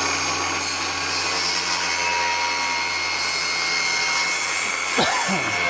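Milwaukee M18 FUEL cordless power sander running steadily with a high whine, rubbing against a PVC cabinet panel to scuff its surface so the glue will bite.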